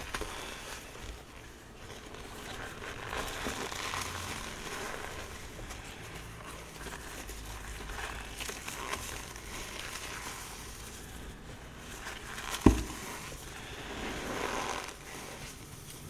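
Hands crushing and crumbling chunks of gym chalk into powder, with uneven crunching that comes and goes. One sharp thump about three-quarters of the way through is the loudest sound.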